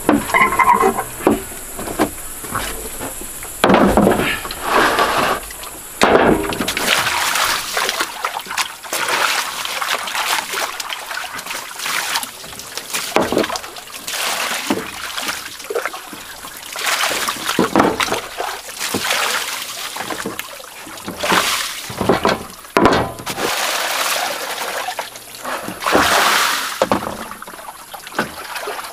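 Water splashing and sloshing in a series of short, uneven strokes. A steady high insect shrill runs underneath at first and fades about six seconds in.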